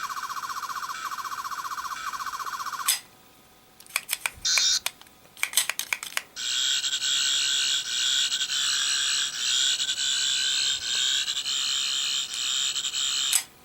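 A toy 4th Doctor sonic screwdriver plays the 11th Doctor's sonic sound effect. An electronic buzz stops about three seconds in. A few clicks and a short blip follow, then a longer, louder warbling whir runs until it cuts off near the end.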